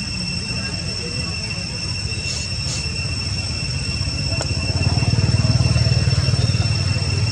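Low, steady engine rumble, growing louder about five seconds in.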